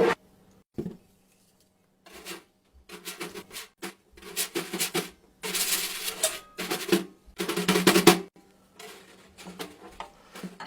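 Foley sound effects being performed: a run of rapid percussive clattering bursts, several clusters with short gaps between them, over a faint steady hum.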